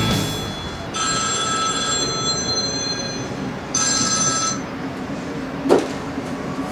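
A phone ringing with a bell-like ring. One ring starts about a second in and lasts about two and a half seconds, and a second, shorter ring follows. A short sharp sound comes near the end.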